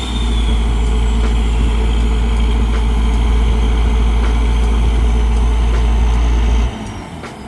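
Heavy engine running steadily with a deep, loud hum, which drops away abruptly near the end.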